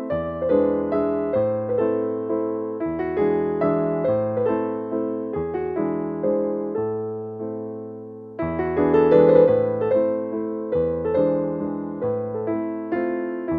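Background piano music: single notes and chords struck at an even pace, with a brief lull about eight seconds in before it picks up again.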